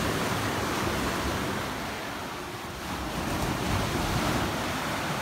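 Sea surf washing on a beach, a steady rushing noise that eases a little and swells again, with wind buffeting the microphone.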